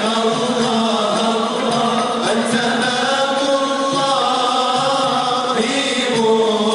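Male vocal group singing Moroccan sama' and madih, a religious song in praise of the Prophet, as an unaccompanied-sounding chant of long, drawn-out notes. A steady low note is held beneath the melody.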